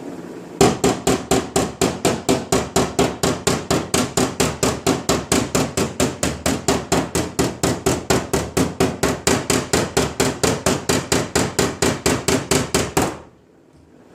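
A hammer striking sheet metal in a fast, even rhythm of about five blows a second, each with a short metallic ring, stopping suddenly near the end.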